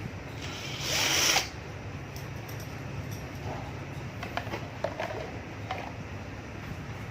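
A short burst of a small power tool, about a second long, near the start, followed by a few light clicks of parts being handled.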